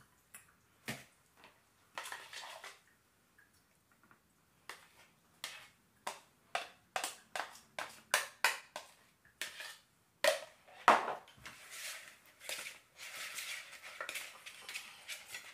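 Plastic clicks and knocks as a red plastic mixing bowl and its plastic lid are handled and the lid is fitted on. In the last few seconds comes a busier rattling swish as the lidded bowl is shaken to toss the fried chicken strips in the sauce.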